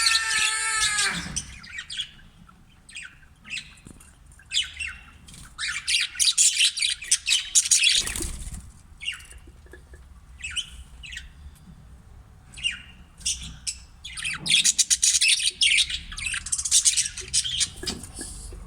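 Pet budgerigars chirping and chattering in quick, squawky bursts, busiest around the middle and again near the end. A held, pitched call fades out about a second in.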